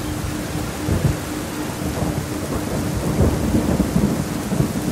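Recorded steady rain with thunder rumbling low underneath, swelling about a second in and again from about three seconds to near the end. A thin pulsing tone, the track's 4 Hz theta tone, runs under the rain.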